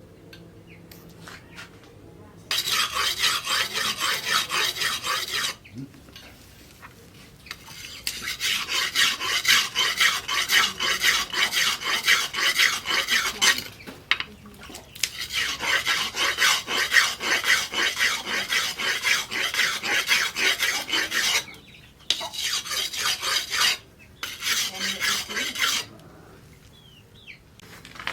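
Steel knife blade being worked by hand against an abrasive, a file or sharpening stone, in quick rasping back-and-forth strokes. The strokes come in five bouts with short pauses between them.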